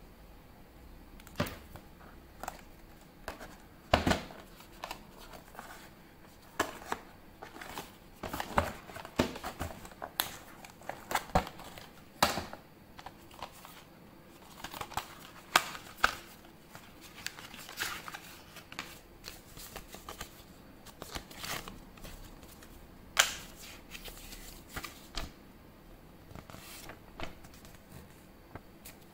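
Tablet packaging being handled by hand: irregular crinkling and rustling of wrapping, with scattered sharp clicks and taps as parts of the box are handled.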